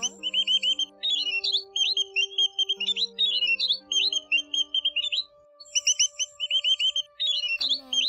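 White-headed munia calling: rapid series of short, high chirps in repeated phrases, with a brief pause about five seconds in. Faint steady low tones sit underneath.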